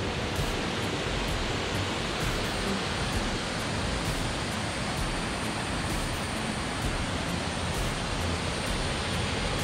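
Steady, even rush of a waterfall flowing down a rocky gorge, heard from high above on the rim.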